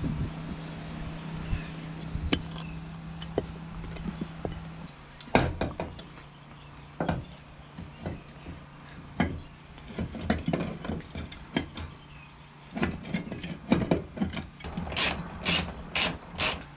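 Hand tools and parts clicking and knocking while bolts are fitted to a go-kart wheel, with a quick run of about five sharp clicks near the end. A low steady hum sounds during the first few seconds.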